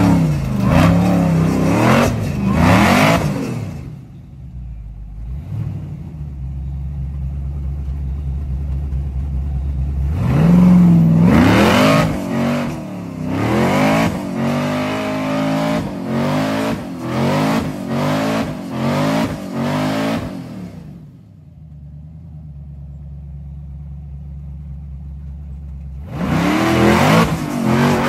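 Rock bouncer buggy's engine revved hard in repeated surges, its pitch rising and falling, as it climbs a steep rock ledge. It drops back to a steady idle twice, about four seconds in and again about twenty-one seconds in, before revving up again near the end.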